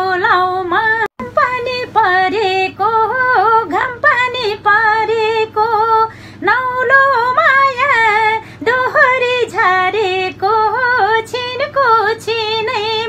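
A woman singing solo without accompaniment: a melody of long, wavering held notes joined by quick turns. There is a brief break with a click about a second in.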